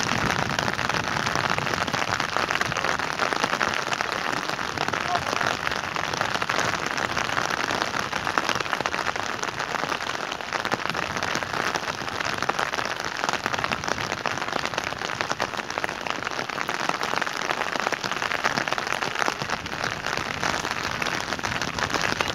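Steady rain with a dense patter of drops and no let-up.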